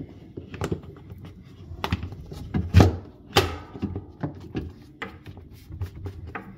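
Plastic guard panel of an under-counter ice maker being pressed and snapped back into place by hand: a run of irregular plastic knocks and clicks, the loudest a little before and just after the three-second mark.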